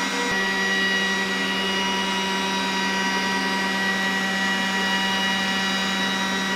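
Glowforge Basic laser engraver running on its stock exhaust fan: a steady fan rush with several steady whining tones over a low hum. The pitch of the tones shifts slightly about a third of a second in. The stock fan is one the owner finds pretty loud.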